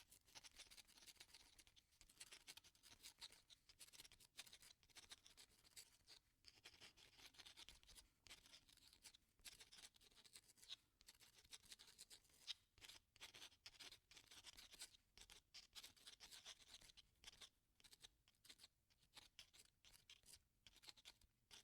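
Pen writing on paper: quiet scratchy strokes of the nib in quick irregular runs, with brief pauses between words.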